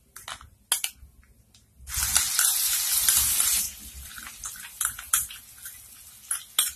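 Onion paste dropped into hot oil and spices in a kadhai, sizzling loudly for nearly two seconds from about two seconds in, then settling to a softer sizzle. Sharp taps of utensils against the jar and pan come before and after.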